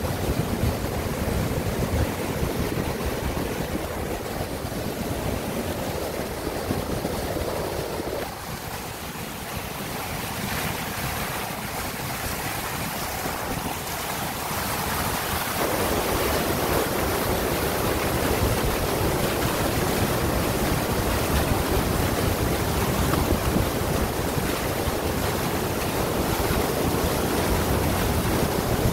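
Whitewater of a small waterfall rushing steadily through a narrow rock chute into a pool. The level dips for several seconds in the middle, losing some of its low rumble, then comes back a little louder.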